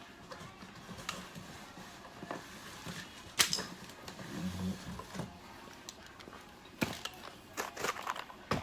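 Light handling noise and scattered plastic clicks from putting together a two-piece 8-foot LED tube: end caps popping off and connector parts pressed and snapped into place, with one sharp snap about three and a half seconds in and a cluster of clicks near the end.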